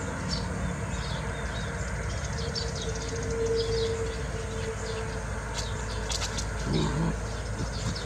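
Small birds chirping, most likely Eurasian tree sparrows: a scatter of short, high chirps, several a second, over a steady low rumble.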